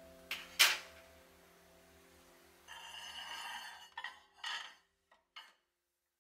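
Ceramic dishes being handled: a sharp clink about two-thirds of a second in, then a stoneware plate scraping for about a second as it slides into a drawer rack against other plates, followed by a few light knocks as it settles.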